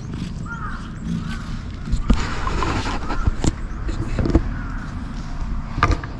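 Camera handling noise: several sharp knocks and a rustle as the camera is moved, over a low wind rumble on the microphone, with two short high chirps, one early and one near the end.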